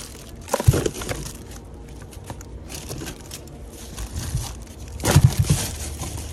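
Plastic produce bags and a plastic bin liner crinkling and rustling as a gloved hand rummages through bagged fruit and vegetables, with louder bursts of crinkling about half a second in and again about five seconds in.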